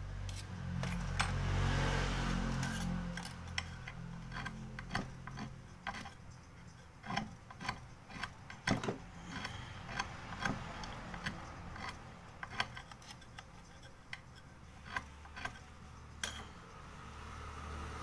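Small metal hand tools, tweezers and a screwdriver, clicking and tapping against a disassembled smartphone's frame and circuit board as a string of sharp, irregular ticks. A low rumble fills the first few seconds.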